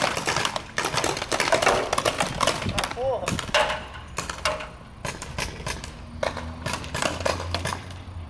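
Paintball markers firing strings of sharp pops in quick succession, thickest in the first half and thinning out toward the end.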